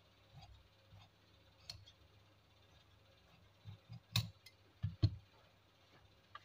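Tailor's fabric shears snipping through cloth with faint, irregular clicks, then two sharper knocks about four and five seconds in as the shears are set down on the cutting table.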